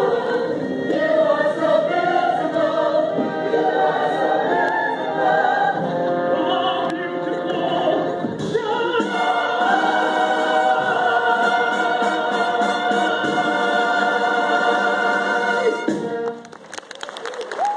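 Several voices singing in operatic style, ending on a long held final chord about two seconds before the end, after which clapping breaks out.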